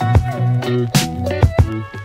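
Background music: an instrumental track with sustained low notes and a regular drum beat.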